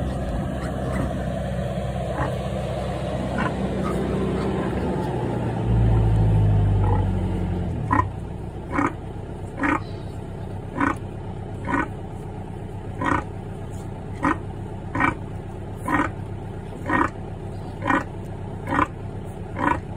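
A sow giving short, rhythmic grunts about once a second while her piglets suckle: the nursing grunts of a sow at her litter's feed. Before that, a low rumble, loudest about six seconds in.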